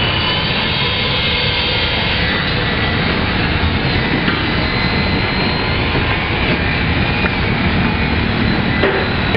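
Construction site machinery running: a steady, loud mechanical drone with a thin high whine on top and a few faint knocks.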